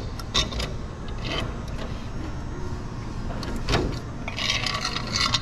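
Metal sign bracket being handled against the sign: a few sharp knocks, then a scrape lasting about a second near the end, over a steady background hum.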